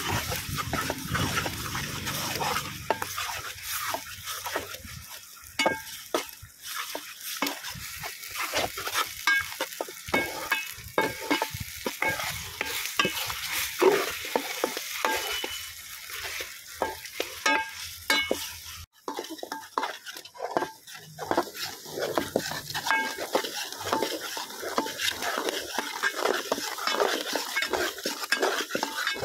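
Metal ladle stirring onions, green chillies and curry leaves frying in a large aluminium pot, with repeated scrapes and knocks against the pot over a steady sizzle.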